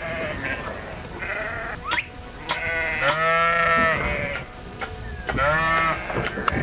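Sheep bleating: several calls, the longest held for about a second near the middle, with a few short clicks between them.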